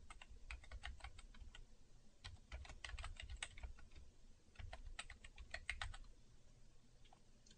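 Faint typing on a computer keyboard: quick runs of keystroke clicks with short pauses between them, thinning out near the end.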